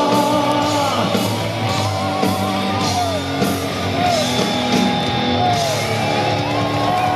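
Live heavy rock band playing loudly with a singer yelling over it: a held chord breaks off about a second in, followed by bending, wavering notes over the band.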